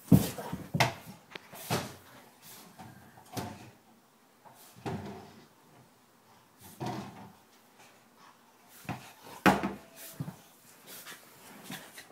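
Irregular knocks and thumps of a dog at play with a large 14-inch push-and-play ball, the ball bumping against the walls and floor of a hallway. The loudest knocks come at the very start and about nine and a half seconds in.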